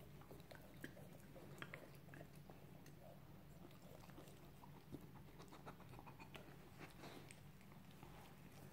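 Faint scattered smacks and clicks of a dog mouthing, licking and chewing at a rubber Kong food toy while pushing it about.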